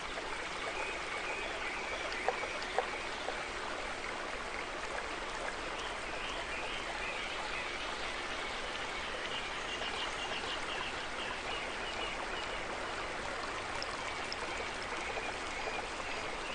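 Steady rushing noise like running water, with two faint clicks about two to three seconds in.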